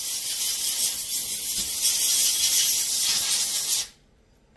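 Compressed air from an air blowgun, a steady loud hiss blowing dust off a part, cutting off abruptly about four seconds in.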